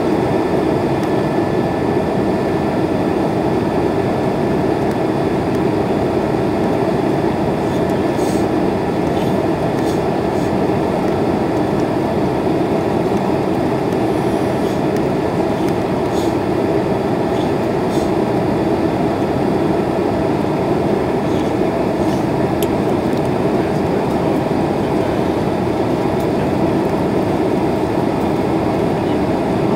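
Steady cabin noise of a jet airliner descending to land, the engines and rushing air heard from inside the passenger cabin, with a few faint clicks in the middle.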